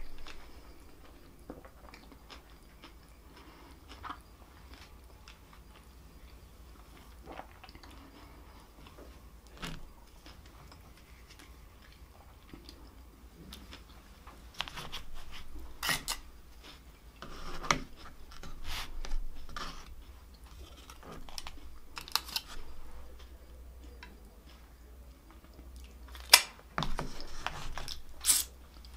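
Close-miked chewing with small mouth clicks and smacks. From about halfway there are louder crinkles and several sharp snaps as the foil lids are peeled off plastic dipping-sauce cups.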